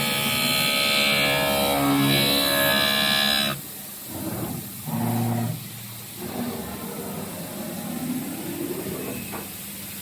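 Background music with sustained, stepping tones that drops away sharply about three and a half seconds in, leaving quieter, intermittent sounds.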